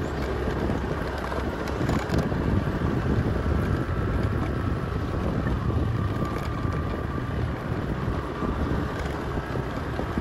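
Wind buffeting the microphone over a steady low rumble of a vehicle on the move along a dirt track.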